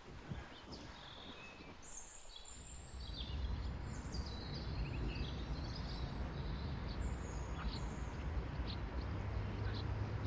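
Birds chirping in short, scattered calls. A low rumble comes in underneath about three seconds in and holds steady.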